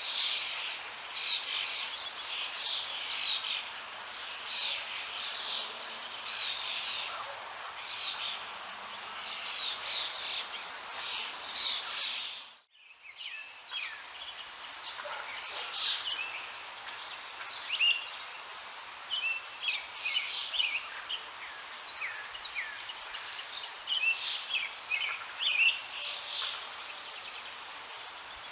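Songbirds chirping and singing in a busy chorus over a steady background hiss. The sound drops out for a moment about halfway through.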